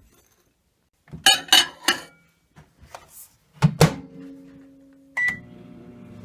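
Microwave oven being loaded and started: some clatter, two loud knocks as the door is shut, a single short keypad beep about five seconds in, then the steady running hum of the oven.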